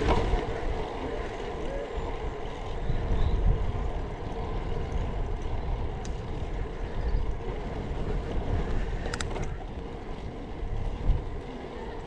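Wind rushing over the camera microphone and road noise from a bicycle being ridden along, a steady low rumble; a brief high tone sounds about nine seconds in.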